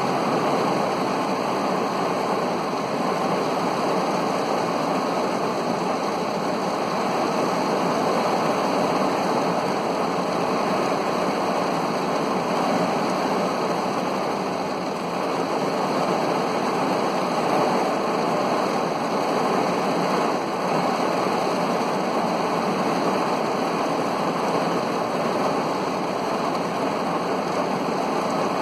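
Heavy rain falling on a car, a steady dense hiss of drops that does not let up.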